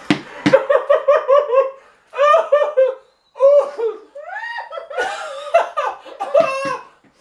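A man and a woman laughing hard with their mouths full of marshmallows, in runs of quick, high-pitched laugh pulses with short breaks between them.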